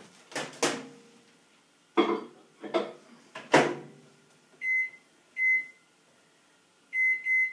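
Microwave oven being loaded and set: a few knocks and clunks as the bowl goes in and the door is shut, then the keypad beeping in short, high single-tone beeps, two spaced apart and then two quick ones near the end, as the time is entered.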